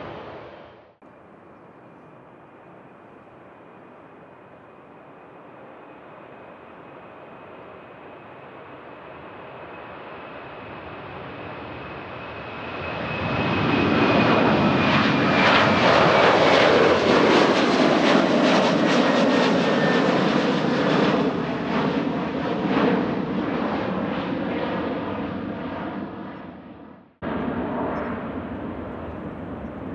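Jet airliner passing close: its engine noise with a high whine builds slowly, swells to its loudest for several seconds as it goes by, then fades, the whine dropping slightly in pitch. The sound cuts abruptly about a second in and again near the end.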